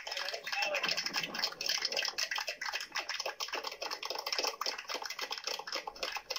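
A small group of people applauding, a dense, steady patter of hand claps.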